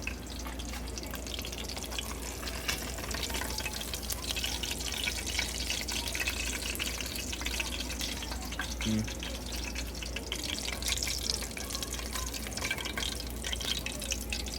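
Battered trout fillets frying in hot grease in a pan: a steady crackling sizzle with fine pops throughout.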